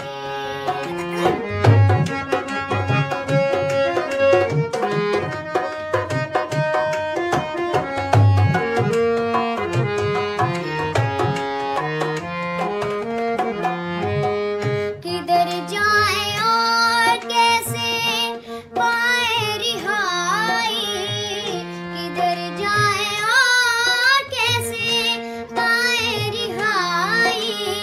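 Song with tabla and a melodic accompaniment, instrumental for the first half; about halfway through, a girl's high singing voice comes in with wavering, ornamented notes over the tabla.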